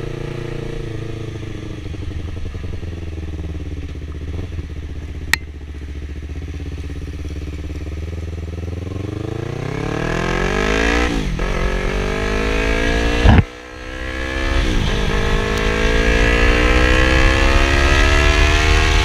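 Yamaha R3 motorcycle's parallel-twin engine heard while riding: the engine note sinks as the bike slows, then climbs as it accelerates, with three quick gear changes in the second half.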